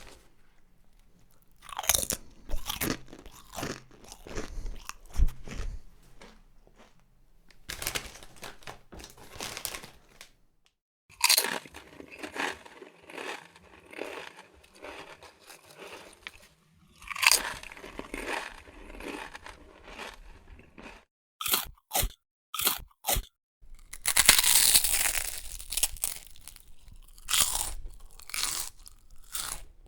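A person biting and chewing crunchy snacks with the mouth close to the microphone: dense crisp crunching in several separate passages with brief silences between them, and a quick run of four sharp snaps about two thirds of the way through.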